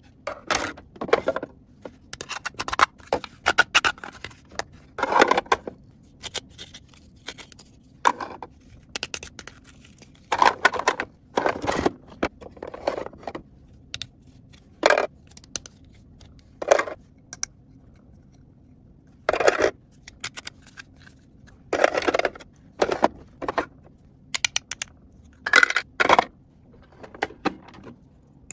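Small plastic toy kitchen pieces being handled: irregular clicks, taps and short scrapes with brief pauses between them.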